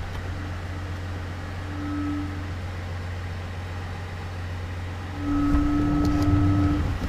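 A pickup's diesel engine idling with a steady low hum, and an electric motor such as a power window whining briefly about two seconds in. The whine comes again, louder, for about a second and a half near the end.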